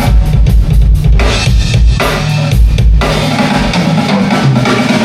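Full drum kit played together for the soundcheck, amplified through the PA: kick drum, snare and cymbals in a steady beat. About three seconds in the kick and beat stop and steadier pitched notes ring on.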